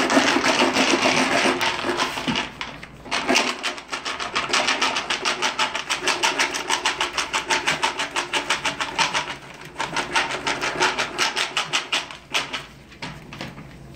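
A litter of puppies crying and yelping in quick repeated cries, about six a second, dying down near the end.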